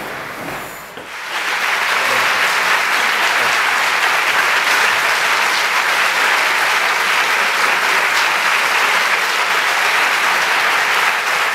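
Theatre audience applauding, many hands clapping at once; the applause comes in about a second in and then holds steady and loud.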